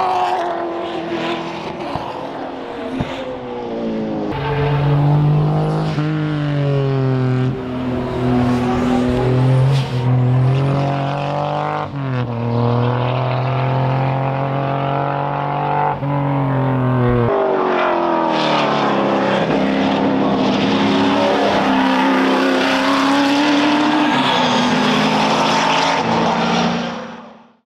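Racing sports sedan engines running hard, pitch climbing as they rev and dropping back at each gear change, over several passes. The sound fades out near the end.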